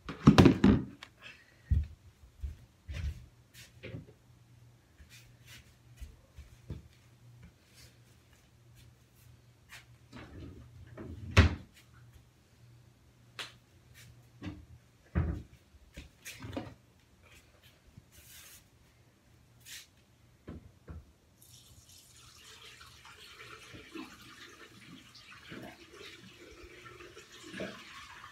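Scattered knocks and bumps of things being handled, then about two-thirds of the way through a tap is turned on and water runs steadily.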